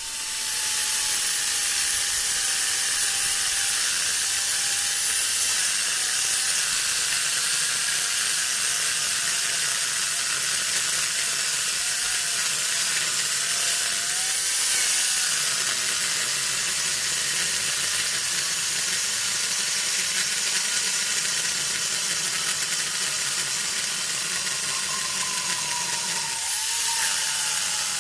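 Angle grinder with a saw-chain attachment running and cutting wood: a steady motor whine over a loud hiss of chain and wood. The motor's pitch slowly sags and wavers, rises briefly near the end, then drops again.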